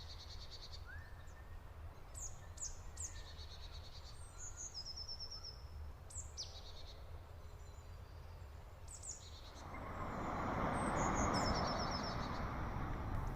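Birds chirping with quick high calls and short trills over a low steady rumble of surf; about ten seconds in, a wave washes in with a swelling hiss that becomes the loudest sound.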